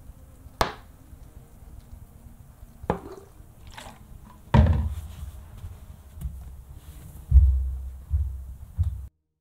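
Plastic water bottle being handled while watering plants: about six sharp knocks and low thumps, the loudest about halfway through and again near the end.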